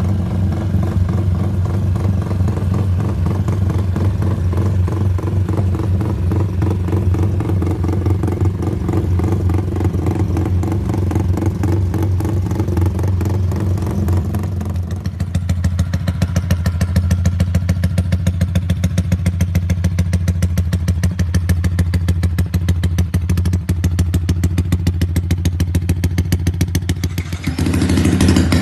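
Yamaha Y15ZR / MX King 150 single-cylinder four-stroke motorcycle with an aftermarket exhaust idling in a rumble idle, its ignition timing set for a lumpy 'timing kuda' beat. The idle holds steady, and about halfway through it takes on a stronger, even pulsing.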